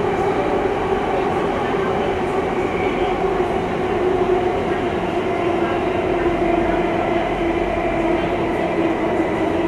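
Singapore MRT Circle Line train running between stations, heard inside the carriage: a steady rumble of wheels and running noise with a held hum.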